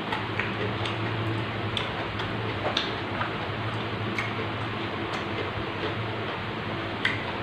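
Close-miked eating: irregular wet clicks and smacks of a mouth chewing raw vegetables, a few a second, with a sharper click near the end, over a steady low hum.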